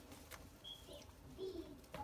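Faint clicks of hands handling the drill's wires and test leads, with a short bird chirp about two-thirds of a second in and birds calling faintly in the background.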